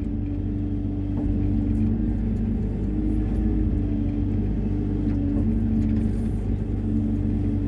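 Hyundai 140 wheeled excavator's diesel engine running steadily, heard from the operator's cab as the boom and bucket work.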